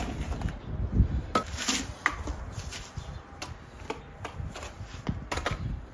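Masonry work with mortar: irregular scrapes, clicks and knocks, with a few sharper knocks about one and a half and five seconds in.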